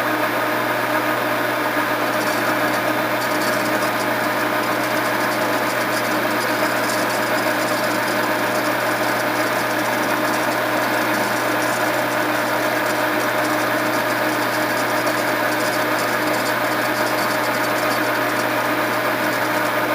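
Metal lathe running steadily at about 460 RPM, turning a 3/16-inch end mill in the chuck as a shaft is fed against it to mill a keyway. An even motor hum with a few constant tones throughout.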